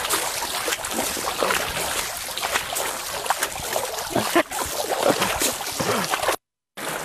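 Water splashing repeatedly as river water is scooped by hand and thrown onto an elephant's leg, with many small splashes over a steady wash of moving water. A brief cut-out near the end.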